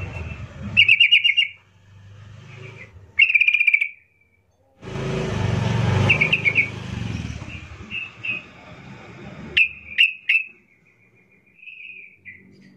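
Yellow-vented bulbul (trucukan) singing: short bursts of quick, bubbly chirps and trills, then a few sharp single notes about ten seconds in. A stretch of rustling noise runs under the song in the middle.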